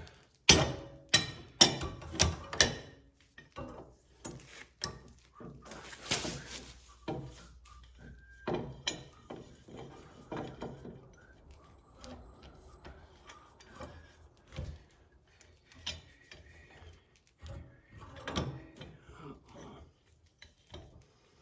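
A series of sharp knocks and clicks from parts and tools being handled during hands-on assembly work: a run of five or six quick, loud knocks in the first three seconds, then scattered lighter clicks and knocks.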